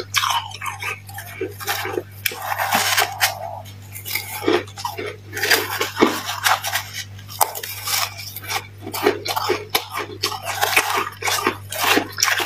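Metal spoon scraping and crunching into a heap of powdery freezer frost, scooping it up in many quick, gritty scrapes and clicks.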